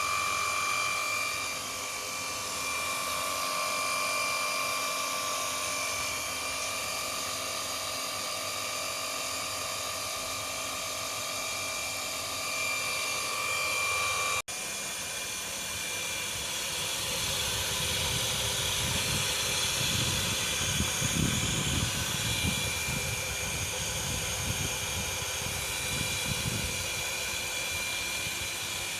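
Mitsubishi Electric water pump running with a steady whine, the noise of its worn bearings after ten years of use. A low, uneven rumble joins in during the second half.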